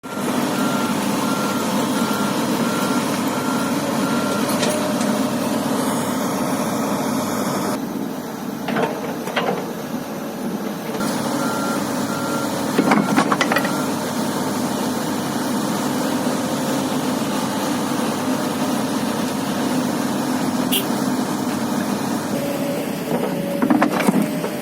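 Heavy machine's diesel engine running steadily, with a travel or reversing alarm beeping in two short spells of even beeps. A few sharp knocks come in between.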